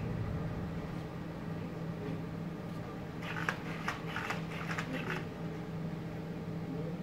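Nao humanoid robot turning in place: a run of short servo-motor whirrs and foot shuffles between about three and five seconds in, over a steady low hum.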